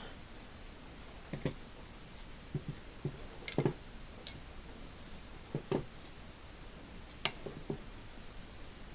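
Steel combination wrenches clinking and knocking against each other as they are handled, a scattering of short metallic clinks with the sharpest one about seven seconds in.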